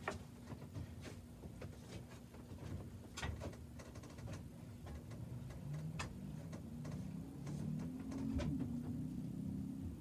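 Gas furnace with a steady low hum and a few scattered clicks; from about halfway a motor hum starts, rising in pitch and growing louder as the motor spins up.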